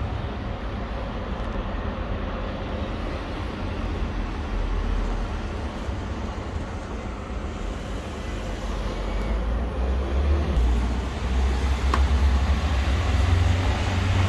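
Steady low rumble of street traffic, getting louder about ten seconds in.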